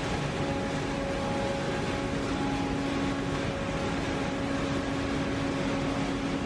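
Steady drone of cotton gin machinery running, a constant wash of noise with a steady low hum on top.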